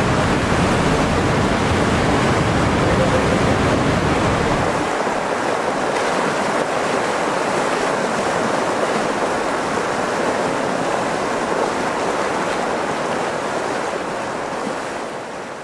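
Muddy flash-flood water rushing and churning in a steady loud rush. A deeper low rumble drops away about five seconds in, and the sound fades out near the end.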